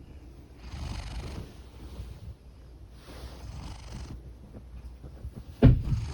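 Large domestic cat purring and snoring in its sleep: a continuous low rumble with a noisy breath about every two and a half seconds. A sharp thump near the end is the loudest sound.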